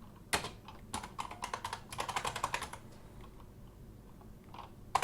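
Typing on a computer keyboard: quick key clicks in three short runs, then a pause of about two seconds with a single keystroke near the end.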